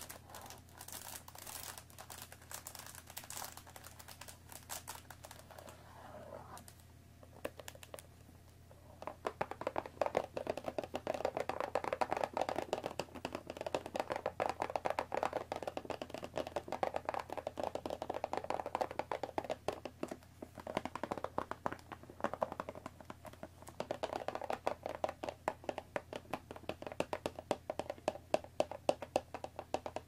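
Long fingernails scratching and rubbing on a cardboard tea box, then from about nine seconds in tapping quickly and continuously on its top, like fast typing.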